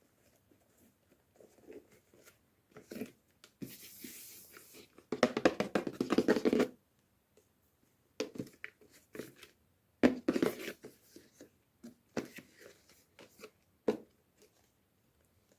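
Hands opening toy packaging: irregular rustling, tearing and small clicks, with a dense stretch of crinkling about five to seven seconds in.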